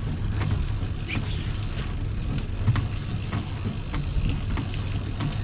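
Boat engine running at trolling speed, a steady low drone, with scattered short ticks and knocks over it.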